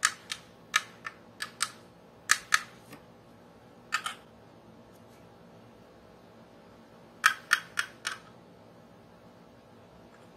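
Metal screwdriver tip tapping on the engine casing of a 1:12 scale diecast Kawasaki Ninja H2R model. Sharp light clicks come in quick clusters, about fifteen in all, with a pause of a few seconds before the last group.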